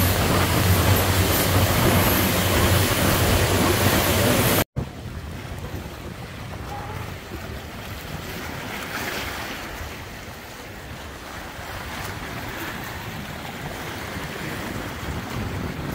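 Motorboat under way: its engine running with a steady low hum under rushing wind and water. About five seconds in this cuts off suddenly, and small waves wash over a rocky shore, with wind on the microphone.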